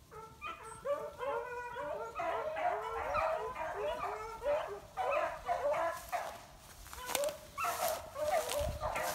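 A pack of beagles giving voice, several dogs baying in quick overlapping notes at different pitches, the sound of hounds running a scent trail. It eases off briefly past the middle, and dry brush crackles near the end.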